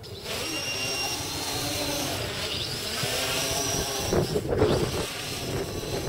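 Multirotor whine from the WhirlWind 600 V-tail quadcopter's four 2212 1000 kV brushless motors and propellers in flight. The pitch rises and falls as the throttle changes through rolls, with a louder rush about four seconds in.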